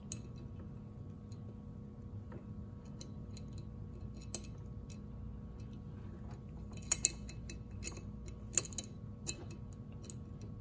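Light metallic clicks and clinks of a steel adjustable wrench being fitted onto a small bolt and turned in a steel block, with a few sharper clicks in the second half, over a faint steady hum.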